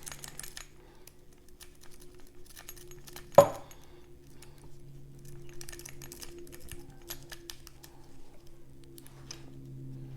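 Lock picking: light metallic clicks and scratches of a Bogotá pick and tension wrench working the pins in a cheap padlock's keyway, with one sharp knock about three and a half seconds in. A steady low hum runs underneath.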